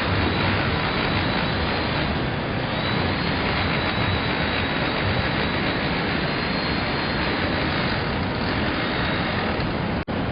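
Steady roar of heavy ocean surf breaking.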